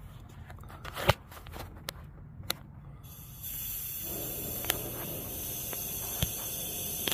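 A few sharp clicks and knocks of handling, then about three and a half seconds in a steady hiss of compressed air starts and keeps going, the shop air used to drive a smoke test for intake vacuum leaks.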